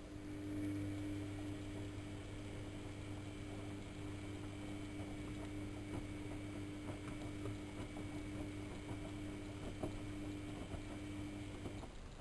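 AEG Electrolux Lavamat L6461 front-loading washing machine's motor turning the drum for one wash stroke during a 95 °C boil wash: a steady hum with soft knocks and sloshing of the laundry. It starts suddenly and stops just before the end.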